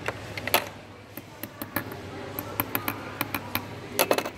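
Sharp, irregular clicks and taps of small metal jeweller's tools against the piece and the workbench, with a quick cluster of them near the end.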